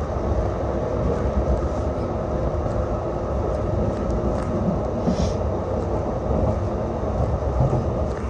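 Calgary CTrain light-rail car running along the track, a steady rumble of wheels and motors heard from inside the car, with a brief high hiss about five seconds in.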